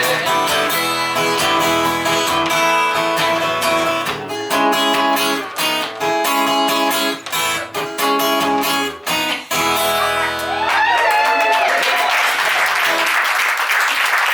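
Acoustic guitar strumming the song's closing chords, with a few stops and restarts. About eleven seconds in the song ends and a small audience applauds and calls out.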